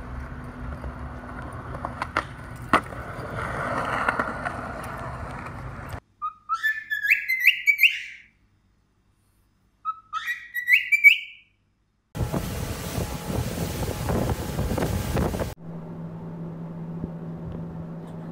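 A cockatiel whistling two short phrases of rising, stepped notes. Before it comes outdoor noise with two sharp knocks; after it, about three seconds of loud rushing noise, then a steady low hum.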